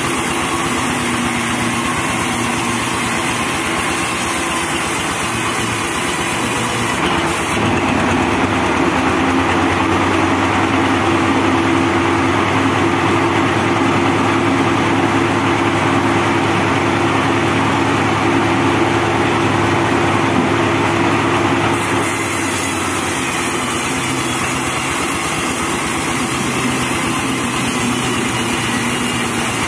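Homemade diesel-driven band sawmill running steadily. From about seven seconds in until about twenty-two seconds the blade is cutting through a teak log, adding a steadier, harsher sawing tone over the engine, which then drops back to the machine running on its own.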